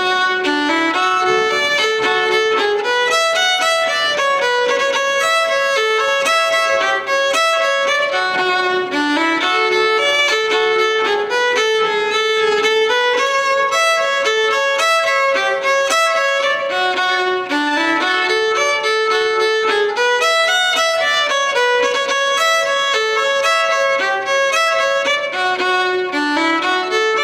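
Solo fiddle playing a slow fiddle tune: a single bowed melody line of evenly held notes.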